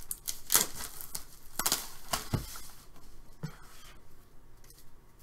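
Handling noise from a shrink-wrapped cardboard trading-card box: crinkling and scraping with several sharp taps in the first three seconds, then fainter rustling.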